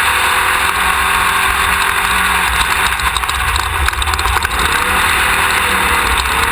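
Class 1600 off-road race buggy's engine running hard, heard from a rear onboard mount over a heavy wash of road and wind noise. The engine note eases off about halfway through, then climbs again.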